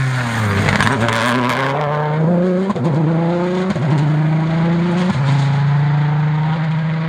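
Mitsubishi Lancer WRC rally car with a turbocharged four-cylinder engine. As it passes at speed, the revs drop with sharp crackles about a second in, then it accelerates away, climbing through three quick upshifts before holding steady revs as it fades.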